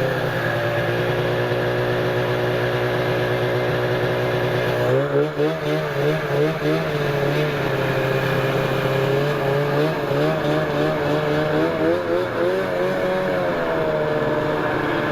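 Snowmobile engine running hard at high revs. Its pitch steps up about five seconds in, then wavers up and down with the throttle.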